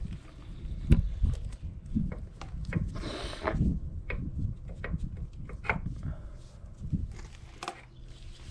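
Irregular small clicks and knocks of metal parts being handled and pushed into place at a motorcycle's rear brake caliper during a brake pad change, with a short scrape about three seconds in.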